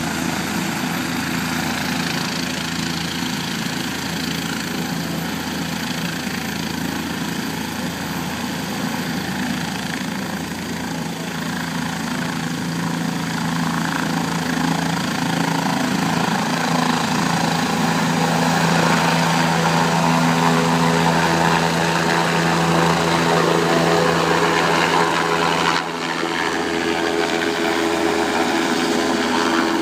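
Helicopter's turbine engine and rotor running steadily on the ground, a steady drone with a few held tones over rotor noise. It grows louder through the middle as it powers up, and the helicopter lifts off near the end.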